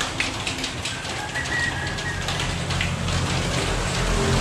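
Aerosol can of WD-40 spraying onto the roller bearings of a stripped Canon iR photocopier frame: a crackly, spattering hiss that flushes and lubricates the bearings so they turn smoothly. A low hum rises in the second half.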